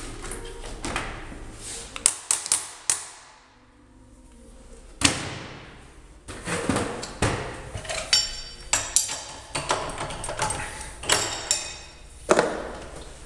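Metal tools and parts clanking and knocking as they are handled and set down at a milling machine vise: a string of sharp metallic knocks, some ringing briefly, with a short lull about three to four seconds in.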